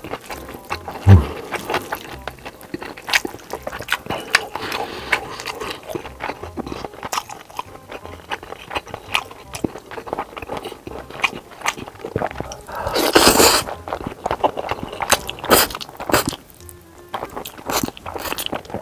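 Close-miked eating sounds: wet chewing and smacking, chopstick clicks, and slurping of sauce-coated noodles, with one longer, louder slurp a little past the middle. Background music plays underneath.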